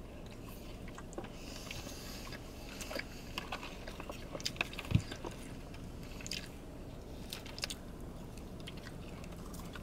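Salad being eaten: bites and chewing of lettuce with small crunches, and little clicks of forks against clear plastic salad bowls. One louder knock comes about halfway through.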